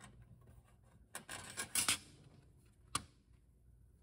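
Steel separator plate of a Volkswagen 01M/01P valve body being lowered over the alignment pins onto the valve body: light metallic scraping and clinking about a second in, then one sharp click near three seconds as the plate seats.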